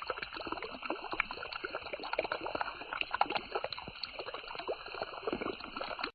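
Running water gurgling and splashing: a continuous patter of many small splashes and drips, with no steady rhythm.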